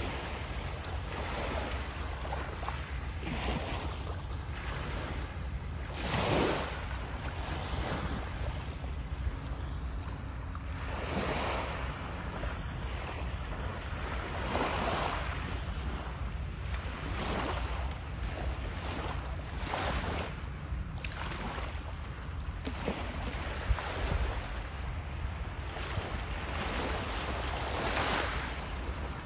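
Small waves breaking and washing up the shore every few seconds, each a brief rushing swell of surf, over a steady low rumble of wind on the microphone.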